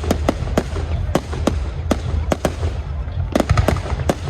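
Fireworks going off in quick, irregular succession: a run of sharp bangs and crackling reports, bunched tightest about three and a half seconds in, over a steady low rumble.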